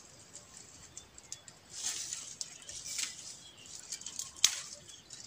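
Dry bamboo leaves and undergrowth rustling and crackling as someone pushes into a bamboo clump, with a sharp snap about four and a half seconds in.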